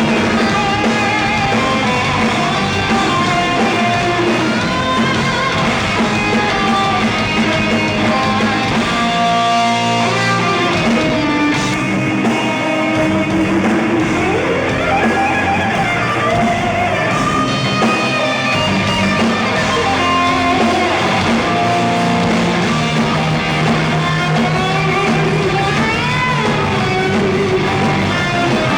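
Live instrumental rock band playing loudly: an electric lead guitar plays a melody with bent, gliding notes over drum kit and bass.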